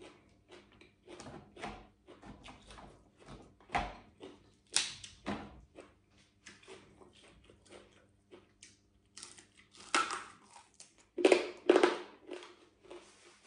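Close chewing and crunching of crispy fried pork belly: a run of short, sharp crackles and crunches, with louder bursts of bites about four to five seconds in and again near the end.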